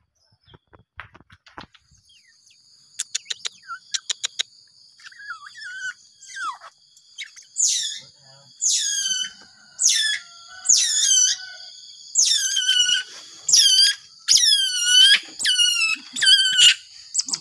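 Baby otter giving loud, high-pitched squeals about once a second, each falling steeply in pitch, calling for food as fish is brought. A run of sharp clicks comes a few seconds before the calls begin, and a faint steady high whine runs underneath.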